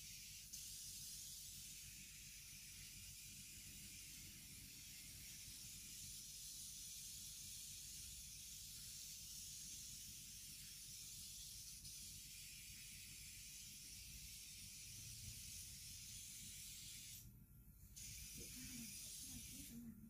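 Faint, steady hiss over a low hum, like a recording's background noise. It drops out briefly about seventeen seconds in.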